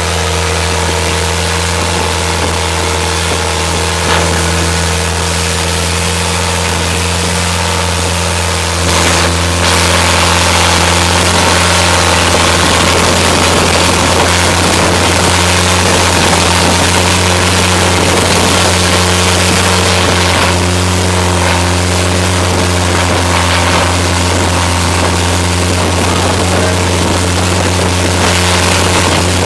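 A motorboat's engine running steadily at speed, with a rushing hiss of wind and water, getting slightly louder about nine seconds in.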